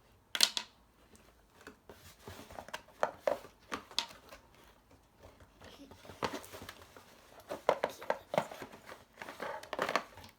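Plastic toy pieces and packaging being handled, with irregular clicks and crinkling rustles.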